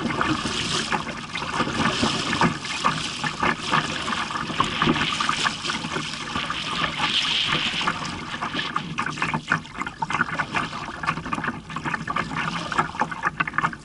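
Water sloshing and splashing around a kayak on choppy water, an uneven run of small splashes and lapping against the hull.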